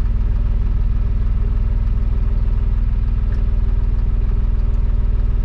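Fendt Vario tractor's diesel engine running steadily, with an even, unchanging pitch, while the tractor drives under remote control.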